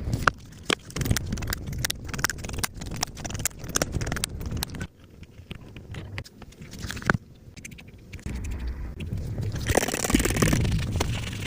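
Rapid small clicks, taps and scraping from a smartphone and its parts being handled and worked on during a repair. They go quieter for a few seconds in the middle, then louder noise comes in near the end.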